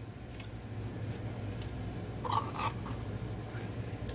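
A metal spoon scraping thick canned chili out of a tin can into a pot: two short scrapes about two seconds in, then a click near the end, over a low steady hum.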